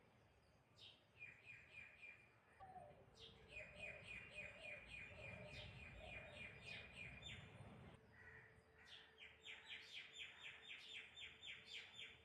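Faint bird chirping: rapid runs of short repeated chirps, several a second, one run starting about three seconds in and another near the end.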